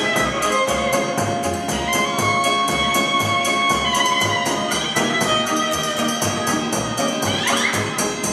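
Folk band music: a violin playing the melody over keyboard accompaniment, with a strapped bass drum and its mounted cymbal keeping a quick, steady beat of sharp cymbal strokes and low thumps. Near the end the violin slides quickly upward in pitch.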